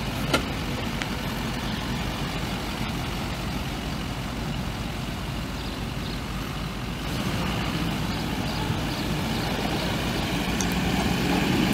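6.6-litre V8 diesel engine of a 2006 Chevrolet Silverado 2500HD pickup running steadily at idle, with a short click near the start; it gets louder about two-thirds of the way in.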